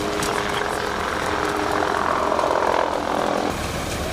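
Bus engine idling steadily, with a rush of noise that swells and then fades in the middle.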